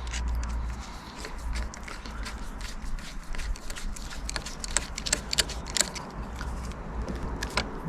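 Irregular small metallic clicks and scrapes of hand-winding the cable adjuster on a pit bike's clutch lever, with a low steady rumble underneath.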